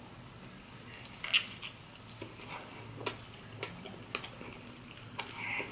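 Close-miked chewing of a soft, sticky frosted cinnamon roll, with a handful of sharp wet mouth clicks and smacks about a second apart.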